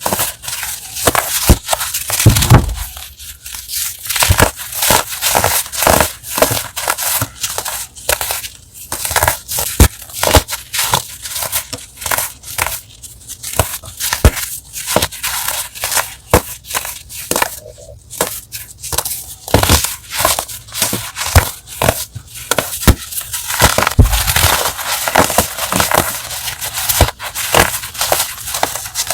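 Chalk blocks being crushed close to the microphone: a dense run of crisp crunches and crackles.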